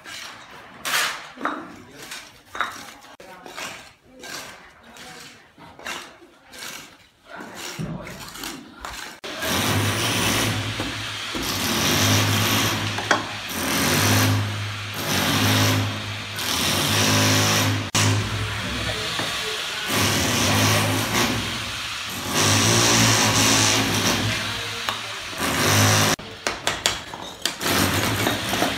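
Bricklaying sounds: a trowel scraping mortar and knocks as bricks are tapped into a mortar bed. About nine seconds in, a louder machine starts running with a steady low hum and keeps going, briefly dipping, until near the end.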